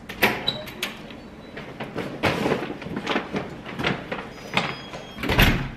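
Someone moving around with shopping bags: a run of irregular knocks and rustles, with a louder thump near the end.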